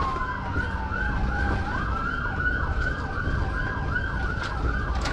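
Police car sirens: one winds down in a long falling wail over the first couple of seconds while another runs a fast yelp, about two to three sweeps a second. A steady engine and road rumble runs underneath.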